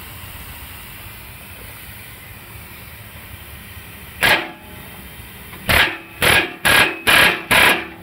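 Pneumatic air hammer fired in short bursts, driving a punch against the ears of a Shockit socket to break loose a rusted, stuck rear oxygen sensor. There is one burst about four seconds in, then five quick bursts roughly half a second apart near the end.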